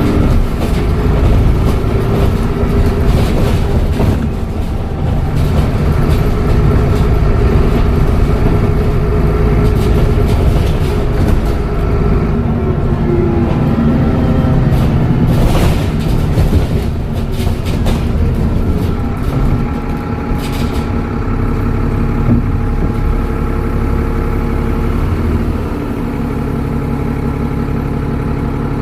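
Dennis Trident double-decker bus's diesel engine and Voith automatic gearbox under way, the engine note shifting in pitch several times, with a steady high turbo whistle over it. A couple of sharp knocks come in the middle, and the engine settles to a lower, quieter note near the end.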